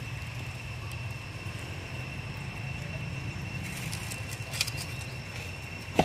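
Steady outdoor background: a low rumble with a thin, steady high tone over it. A few light clicks and rustles come about four to five seconds in, and a sharp click comes near the end.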